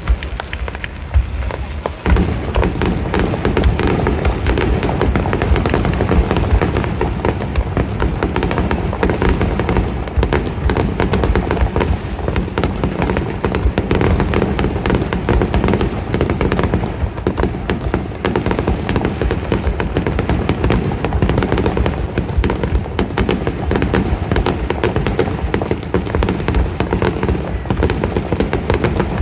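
Aerial fireworks in a rapid, continuous barrage of shell bursts and crackling pops, building up about two seconds in.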